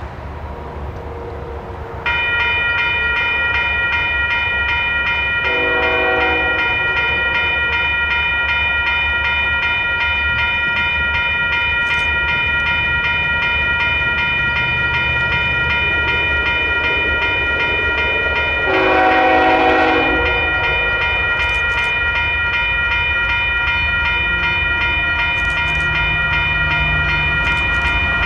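A railroad crossing's warning bell starts ringing about two seconds in and keeps on. Over it, the approaching Union Pacific freight locomotive sounds its horn twice, a short blast and then a longer one. The train's low rumble runs underneath.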